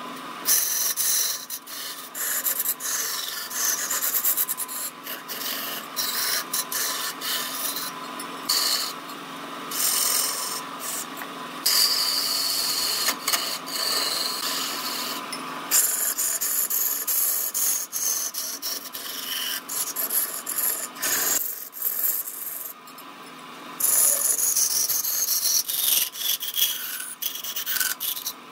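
A turning chisel cutting into a large piece of wood spinning on a lathe: a rough, scraping hiss of shavings being cut, which keeps breaking off and coming back as the tool bites and eases off. Under it runs a steady hum.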